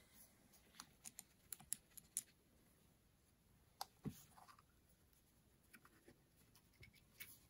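Faint, scattered light clicks and taps of small carburetor parts being handled as the accelerator pump cover and spring come off a Motorcraft 2150 carburetor. Most fall in the first couple of seconds, a few more come around the middle and one near the end, against near silence.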